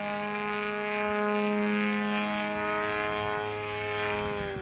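A ZDZ 180 twin-cylinder two-stroke gas engine on canister mufflers, powering a large RC aerobatic plane, runs at high throttle in a steady drone overhead. Its pitch sags slightly, then falls sharply near the end as it is throttled back.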